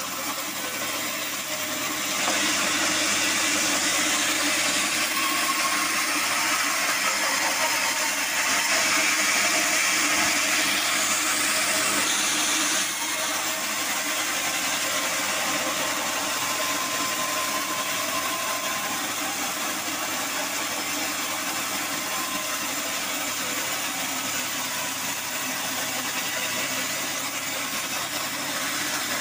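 Band sawmill running, its blade cutting lengthwise through a hard acacia board: a dense sawing hiss over the steady hum of the machine. The cut grows louder about two seconds in and eases off a little around thirteen seconds.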